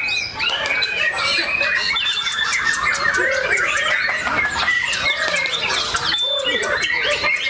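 Many caged white-rumped shamas singing at once, a dense tangle of overlapping whistles, trills and chatter.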